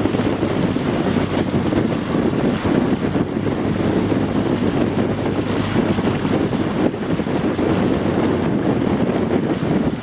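Steady wind noise buffeting the microphone, over the rush of water.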